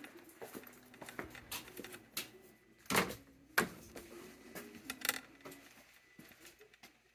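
Light clicks, knocks and clinks of small objects being handled, with a louder, sharper noise about three seconds in.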